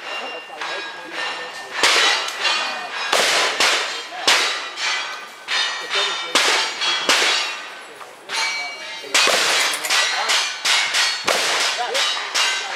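Rapid gunshots from single-action revolvers and a long gun, about one every half second, each followed by the ring of struck steel targets. There is a short pause a little after eight seconds, where the shooter changes guns.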